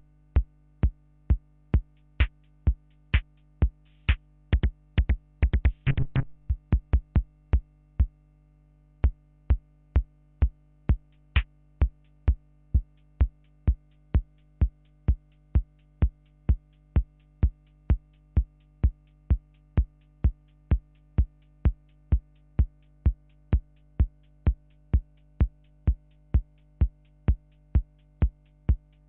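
Electronic drum-machine beat from a Korg Kaossilator: short, sharp clicky hits, about two a second at first, with a quick roll about six seconds in. After a brief pause it settles into a steady, faster pulse of about three hits a second. A steady low hum lies underneath.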